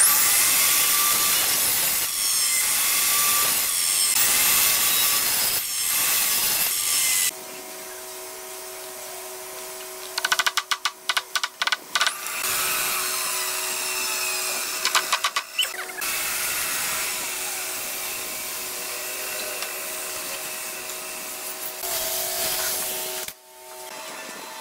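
Power woodworking machinery cutting wood. A loud cut runs for about seven seconds. Then a machine hums steadily at lower level, with a quick run of short strokes a few seconds later and further cutting, before the sound drops away near the end.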